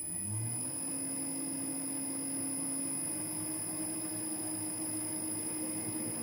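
Metal lathe running slowly, at about 20 RPM, its motor controlled by a variable-frequency drive. A steady hum and a high steady whine, with the motor tone rising as it spins up in the first second, during a spring pass threading a bronze 5 tpi Acme nut.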